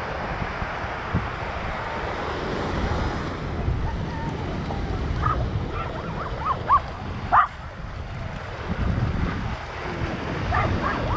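Surf washing onto the beach, with wind on the microphone. A dog barks several short times in the middle, the two loudest barks about seven seconds in, and a few more near the end.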